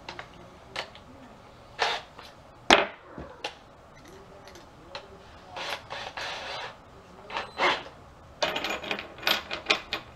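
Scattered knocks, clicks and small metallic clatter of tools and screws being handled while a pool table's middle support is fastened to the frame. A sharp knock comes about three seconds in, and a quick run of clicks comes near the end.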